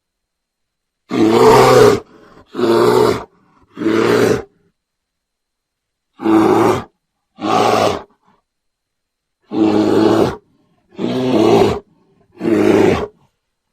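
A bear roaring: eight short roars, each under a second, in groups of three, two and three, with dead silence between the groups.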